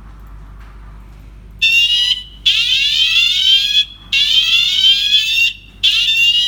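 PST WSA01 Tuya WiFi siren sounding one of its alarm tones: a loud electronic siren of rapidly rising pitch sweeps. It starts about a second and a half in and comes in four bursts broken by short gaps.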